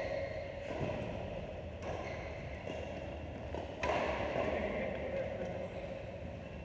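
Badminton rackets striking a shuttlecock during a rally: several sharp hits a second or two apart, the loudest about four seconds in, each echoing in a large hall.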